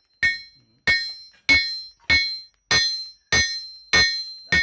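Blacksmith's hand hammer forging a red-hot iron bar on a steel anvil block: eight blows in an even rhythm, a little under two a second. Each blow rings on with a bright metallic tone.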